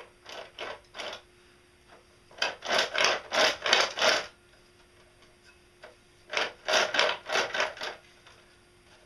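Hands rubbing and scraping back and forth over the sheet-metal housing of a differential assembly, in quick strokes: three near the start, then two longer runs of about half a dozen strokes each.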